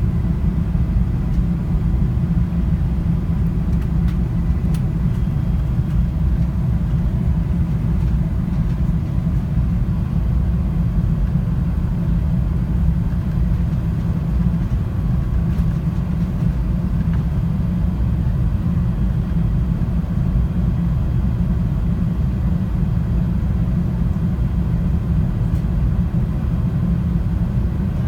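Steady low rumble of an airliner in flight, engine and airflow noise heard inside the passenger cabin.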